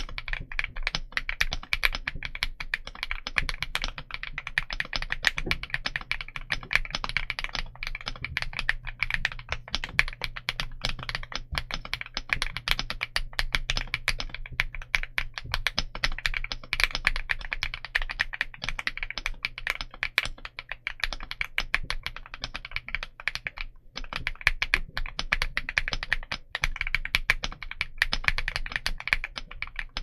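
Continuous fast typing on a stock KiiBOOM Loop65 aluminium 65% mechanical keyboard with KiiBOOM Matcha Latte linear switches and dye-sub PBT Cherry-profile keycaps: a dense stream of keystrokes, with a brief pause about three-quarters of the way through.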